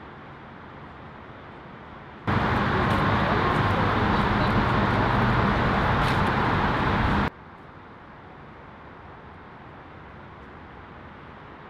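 Steady outdoor background noise. It comes in loud and sudden about two seconds in, lasts about five seconds, then cuts back to a faint steady hiss.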